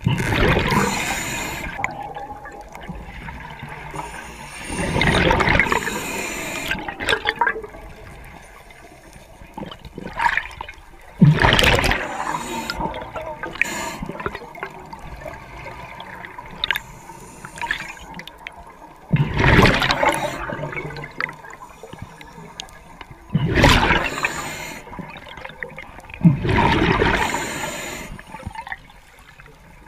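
Diver's exhaled breath bubbling underwater: about six bursts of rushing bubbles, each a second or two long and several seconds apart.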